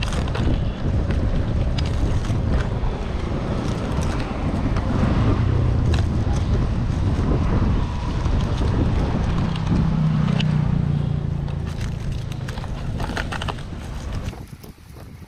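Wind buffeting the microphone, a loud steady low rumble, with scattered light clicks and crackles over it; it fades away near the end.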